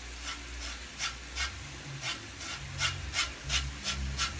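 A lime being rubbed on a flat metal hand grater to take off its zest: a steady run of rasping strokes, about three a second.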